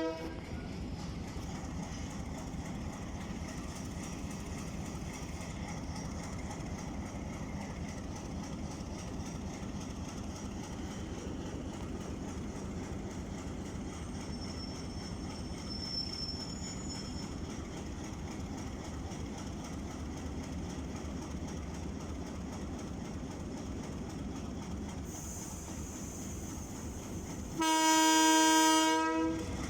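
A passenger train moving through the station with a steady rumble and wheel clatter, then one loud blast of a diesel locomotive's horn, about a second and a half long, near the end.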